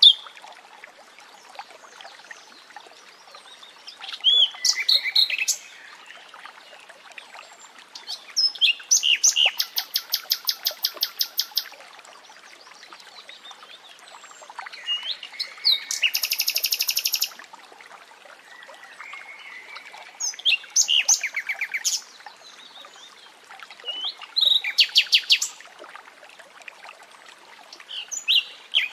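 A common nightingale singing in separate phrases, each a run of rapid repeated notes or a fast buzzy trill lasting a second or two, with pauses of a few seconds between them. A faint steady murmur of running water lies underneath.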